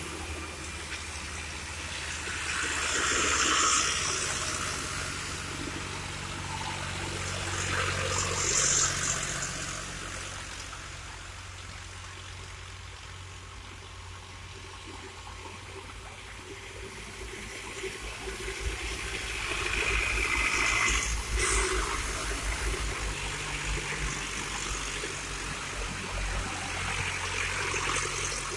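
Vintage tractor engines labouring up a hill. One passes early on, then another draws closer, its low engine beat growing louder from about two-thirds of the way in. Loud swells of rushing noise come twice in the first ten seconds and again later.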